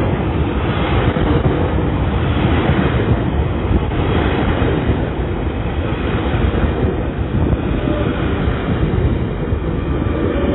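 GO Transit bilevel passenger coaches rolling past close by: a loud, steady rumble of steel wheels on the rails. A faint, steady wheel squeal comes in near the end.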